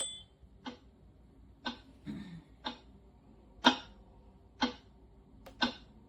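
Sunrise alarm clock's built-in sound machine playing a ticking-clock sound, one sharp tick about every second.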